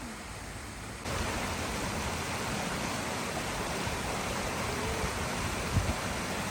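Steady rushing noise, even and without any tone, that gets abruptly louder about a second in, with a brief low thump near the end.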